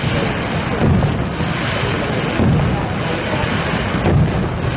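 Aerial fireworks shells bursting overhead: several deep booms about a second apart over a steady rushing noise.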